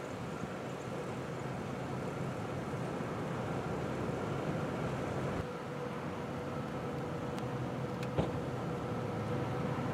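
Steady rumble of road traffic and vehicle engines. A faint steady hum joins about halfway through, and there are a few small ticks near the end.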